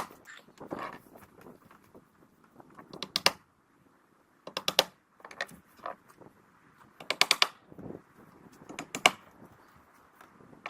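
Plastic-cap roofing nails being driven through underlayment into the roof deck: short bursts of quick, sharp strikes, one every second or two.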